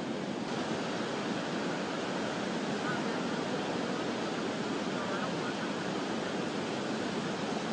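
Floodwater rushing in a steady, even roar-like hiss, the sound of a creek running in full flood.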